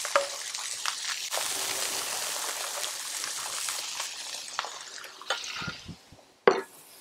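Burger patty and bacon sizzling on a flat-top griddle while a metal spoon ladles thick sauce over the patty, with a few light clinks of the spoon. The sizzle cuts out briefly near the end, followed by one sharp clink.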